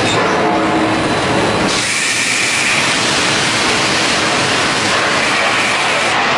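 Steady loud hiss and rumble of a hot-dip galvanizing line, steam hissing off the water quench tank over the conveyor machinery. The hiss turns brighter and sharper about two seconds in.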